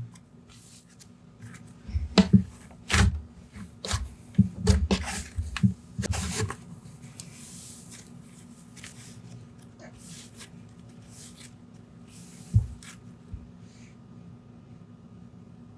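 Hands squishing and pressing slime: a cluster of sticky crackles and popping squelches for a few seconds, then mostly quiet with a single pop later on, over a faint steady hum.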